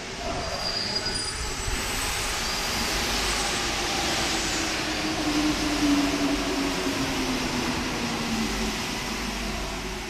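Driverless rubber-tyred Paris Métro Line 1 train pulling into the station: a swelling rush of running noise with a whine that falls in pitch as the train slows, and a few short high squeaks near the start.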